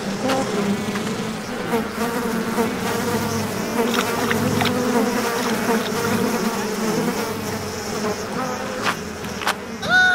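Bees buzzing steadily in a swarm, a sound effect, with a few light clicks over it. A short falling tone sounds at the very end.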